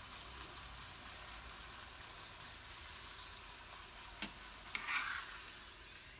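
Tortilla frying in olive oil in a pan: a steady sizzle, with a couple of sharp clicks and a brief louder crackle about four to five seconds in, the sizzle thinning toward the end.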